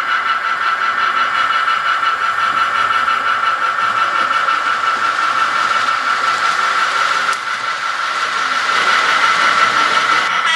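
Model locomotive sound decoder playing a running-engine sound through its small onboard speaker: a steady whine over a hiss, growing louder toward the end.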